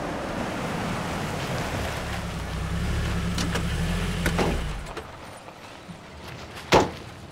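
Maruti Gypsy 4x4 driving up a dirt forest track, its engine and tyres on gravel growing louder, then pulling up and going quiet about five seconds in. A single sharp knock comes near the end.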